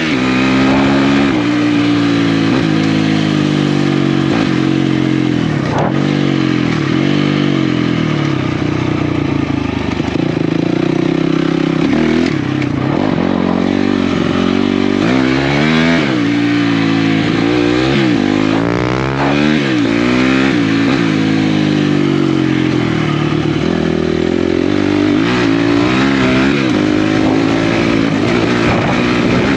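Off-road motorcycle engines at race pace: the throttle is opened and closed again and again, so the engine note climbs through the revs, drops at each shift or corner, and climbs again.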